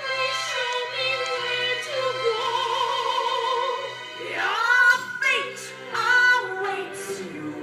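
Operatic singing: long, wavering held notes, then swooping phrases that slide up and down about four seconds in.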